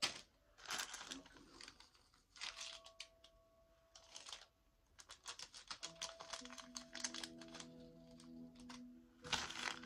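Packaging crinkling and rustling, with scattered small clicks and taps as a small packet of earrings is handled and opened. The crinkling becomes louder and continuous near the end.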